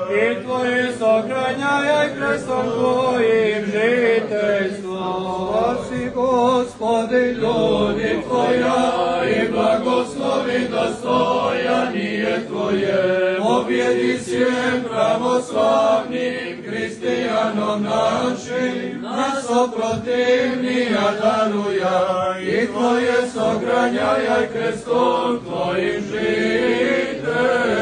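Serbian Orthodox liturgical chanting, sung on without pause during the blessing of water.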